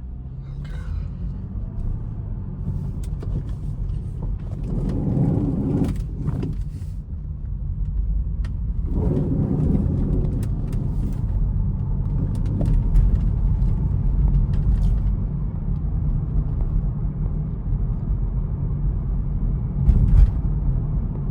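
Grinding from a 2015 BMW 435i Gran Coupe's steering as the wheel is turned at a standstill, over the steady rumble of the idling engine. It gets louder twice, a few seconds in and again around the middle. It is a fault the owner has not traced; it appeared after the car sat for weeks near the sea and the wheel was briefly stiff.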